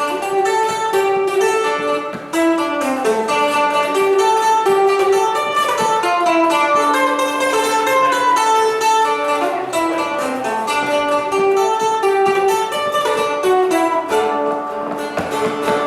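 Guitar playing an instrumental passage at the end of a folk song, a quick run of picked notes without singing.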